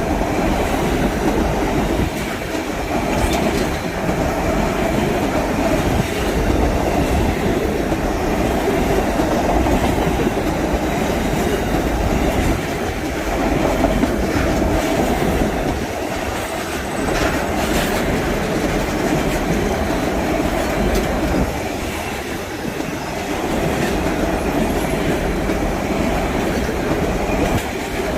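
Freight train wagons rolling past close by, a steady rumble of steel wheels on rail with a run of clicks and clacks over rail joints.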